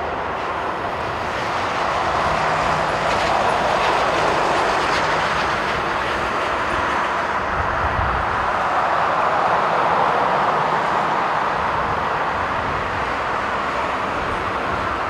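Boeing 777-300ER's twin GE90 turbofans at takeoff thrust: a steady jet roar during the takeoff roll, swelling a little about two seconds in.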